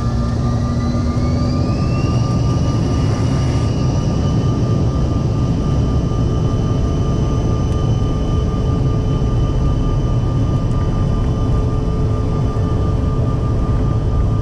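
Inside the cabin of a Bombardier CRJ-900, its rear-mounted GE CF34 turbofans spool up to takeoff thrust. A whine rises in pitch and levels off about two seconds in, then holds steady over a deep rumble as the jet accelerates down the runway.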